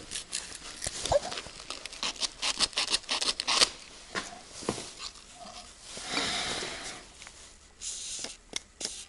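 Handling noises: a run of light clicks and knocks as small metal parts and a spray can are handled, then a short hiss lasting about a second about six seconds in, and a briefer one near the end.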